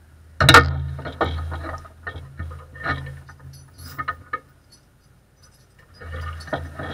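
Irregular sharp clicks and rattles inside a stopped compact race car's cockpit, over a low hum. They start suddenly about half a second in and die away after about four seconds, then start again near the end.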